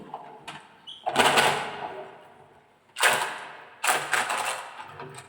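Marbles clattering and rolling down a wooden marble run, in three loud rattling bursts about a second in, at three seconds and just before four seconds, each trailing off, with a few lighter clicks between.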